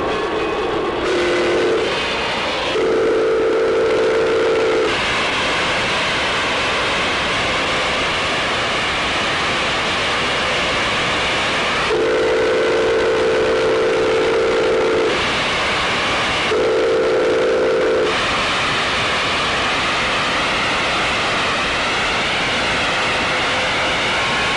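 Pere Marquette 1225's steam whistle sounding four separate blasts of a steady chord: a short one about a second in, a two-second blast soon after, a three-second blast about halfway, and a short one a few seconds later. Between the blasts, the steady hiss of steam escaping from the standing locomotive.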